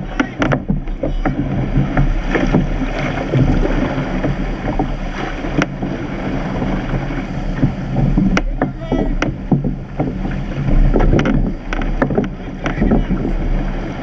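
Surf boat being rowed through the surf: wind buffeting the camera microphone and water rushing along the hull, with repeated sharp knocks of the oars in their gates.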